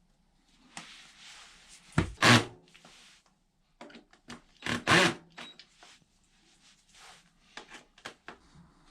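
Workshop handling noises: sudden knocks and clunks with scraping and rubbing between them. The loudest come about two seconds in and again around five seconds in, with lighter clicks near the end.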